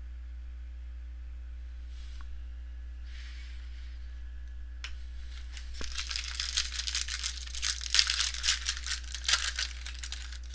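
Trading-card pack wrapper crinkling and tearing as it is opened and handled, a rapid dense crackle that starts about halfway in. Before that there is only a faint steady hum and a couple of light rustles.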